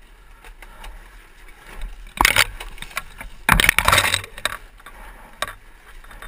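Zero MX electric dirt bike bashing over rocks and through brush on a steep rutted climb: crunching and knocking, with two loud bursts of clattering impacts about two and three and a half seconds in.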